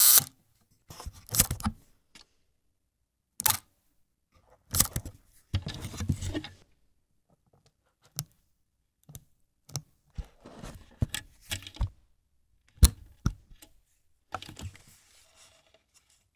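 Agfa Billy Compur folding camera being handled and worked: a string of separate sharp mechanical clicks and short scraping, rattling stretches of its parts, with quiet pauses between them.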